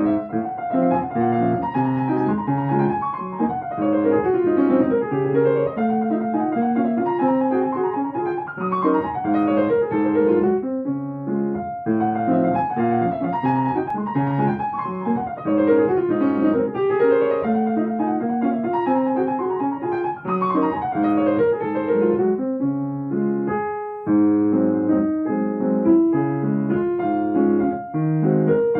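Solo piano played at a quick pace, with fast running passages that rise and fall. The playing pauses briefly twice, about eleven seconds in and again a little before the end.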